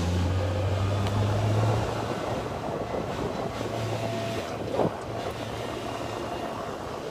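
A vehicle running: a steady low engine hum with road noise, strongest for the first couple of seconds, and a brief sweep falling in pitch about five seconds in.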